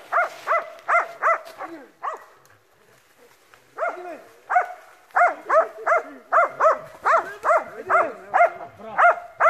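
Hunting dog bay-barking at a wild boar: a quick, even run of barks at about three a second. The barking breaks off for about two seconds, then starts again and keeps going.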